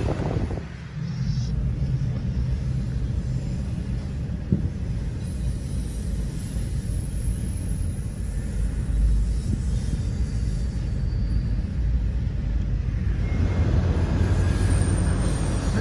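Low, steady vehicle rumble heard from inside a car moving beside a passing double-stack freight train. It grows fuller and a little louder about thirteen seconds in.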